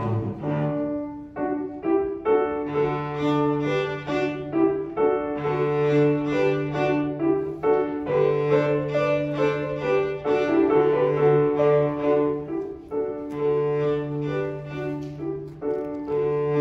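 Cello and piano playing a classical piece together, the cello drawing long, steady low notes over changing piano notes.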